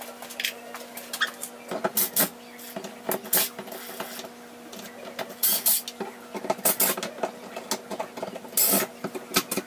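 Cordless drill driving screws into a metal shelf bracket on wood paneling in short bursts, mixed with clicks and clatter from handling the bracket and tool.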